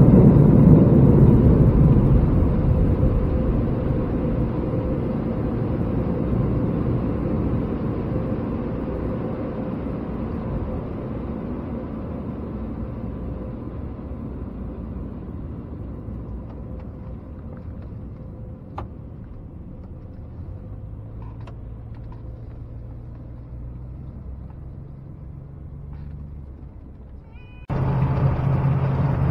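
Loud, even rumbling noise heard from inside a vehicle's cab, fading slowly, with a few faint ticks late on. Near the end it cuts abruptly to the steady engine drone and road noise of a vehicle cruising on the highway.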